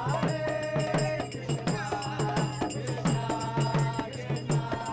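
Music with a steady low drone under a melody, kept by an even percussion beat of about three strokes a second.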